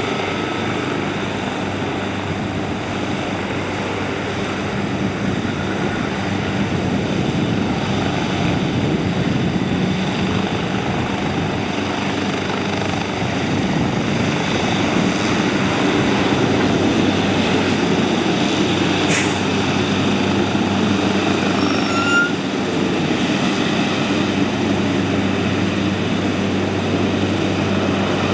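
Air ambulance helicopter's rotors and turbine engine running steadily, growing a little louder in the second half. A single short click sounds about two-thirds of the way through.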